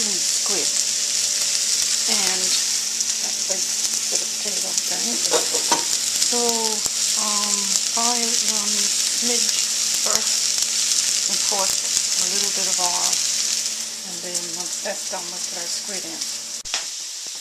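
Sliced onions sizzling in oil in a cast iron skillet, a steady frying hiss that turns quieter for the last few seconds.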